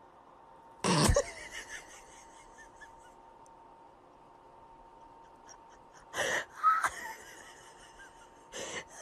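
A cat hissing in short, sharp bursts: once about a second in, then twice around six seconds and once more near the end.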